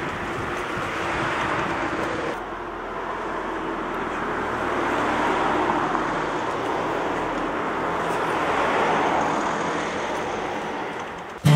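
Road traffic: cars passing, a steady rush of tyre and engine noise that swells and fades as each goes by, with an abrupt change about two seconds in.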